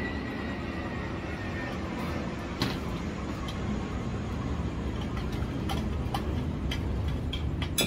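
Chopsticks and spoons clicking against plates and dishes now and then, with the sharpest click near the end, over a steady low rumble.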